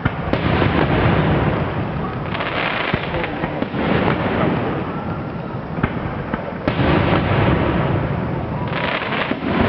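Aerial fireworks display: rocket shells bursting in a dense run of crackling and booms, with a sharp bang just after the start and another near seven seconds in.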